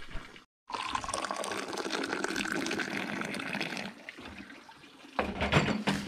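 Tea pouring in a steady stream from a metal teapot into a glass, rising slightly in pitch, then easing off. Near the end comes a short, louder thump.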